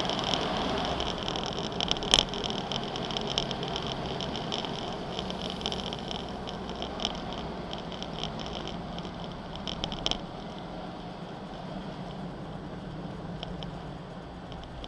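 4x4 vehicle driving on an unpaved track: steady engine and tyre noise with rattling, and a sharp knock about two seconds in and another about ten seconds in.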